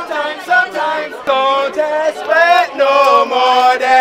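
Several men singing together loudly, holding long notes with their voices sliding up and down in pitch.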